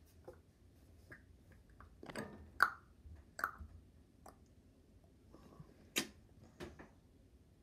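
Quiet room tone broken by about half a dozen soft clicks and small mouth noises close to the microphone, the sharpest one about six seconds in.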